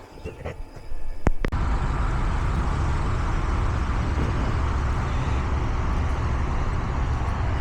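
A few sharp clicks, then about a second and a half in a steady low rumble of motor-vehicle road noise starts suddenly and carries on evenly.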